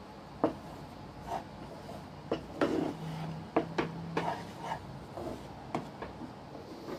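Wooden spatula scraping and knocking against a metal kadai as it stirs gram flour that is dry-roasting. The strokes are irregular and come thickest through the middle.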